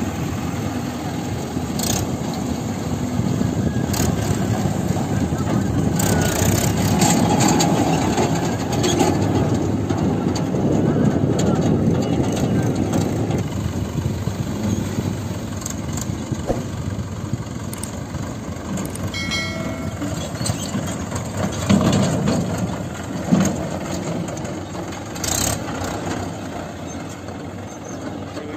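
Mahindra 575 tractor's four-cylinder diesel engine running under load while it hauls a fully loaded trolley up a dirt slope.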